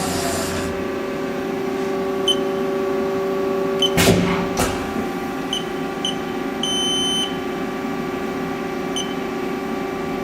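Haas ST20 CNC lathe running with a steady hum while its X-axis is hand-jogged. A hissing axis-motion noise stops just under a second in. Several short high beeps follow, one held longer near the middle, with two sharp knocks around four seconds in.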